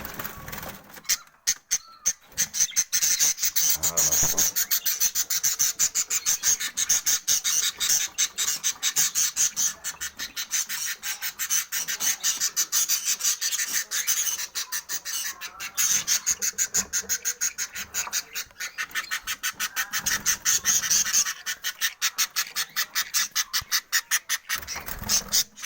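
Budgerigars chirping in a fast, unbroken run of short high chirps, several a second, with a brief pause about a second in and another near the end.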